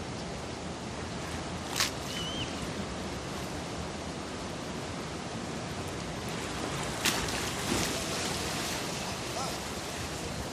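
Sea surf washing steadily on a beach, with two sharp clicks, about two seconds in and about seven seconds in.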